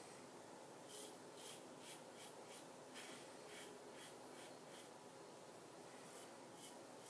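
Gillette Red Tip double-edge safety razor with a new Persona blade, scraping through lathered stubble in a run of about ten short, quick strokes. It pauses, then makes two more strokes near the end. Faint.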